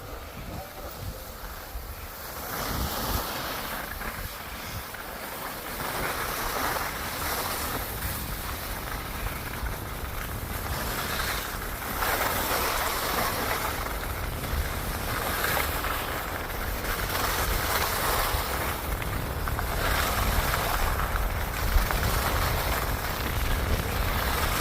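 Wind buffeting the microphone on an open ski slope: a steady low rumble with rushing swells that rise and fall every few seconds.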